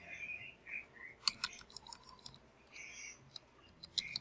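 Computer keyboard keys clicking as a search is typed: a few quick keystrokes about a second in and another run near the end, faint.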